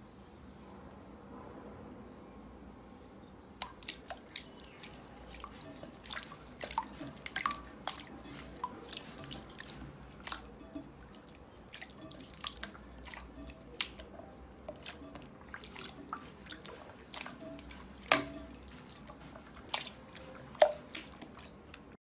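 Clear slime being pressed and stretched by hand, giving many sharp, wet clicks and pops at an irregular pace. The clicks start about three and a half seconds in and keep going.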